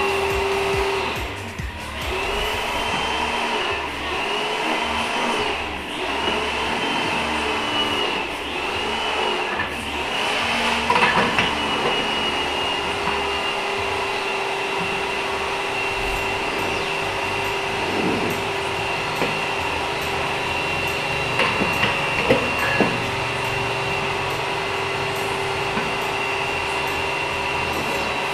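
A handheld hot-air blower runs with a steady whine. Its pitch wavers in a repeated swell for the first ten seconds or so, then holds steady. A few knocks sound against it near the middle and around two-thirds of the way in.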